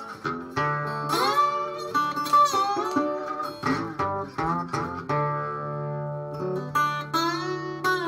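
Resonator guitar played bottleneck-style with a slide in open D tuning, a Delta blues instrumental intro: slide notes glide up into pitch several times over a steady low bass note.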